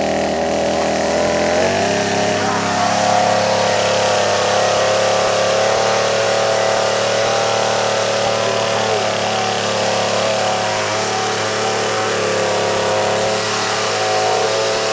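A pull-started Skil gasoline chainsaw running steadily at a fairly constant speed, its chain spinning because this saw starts under power. The pitch shifts slightly about two seconds in.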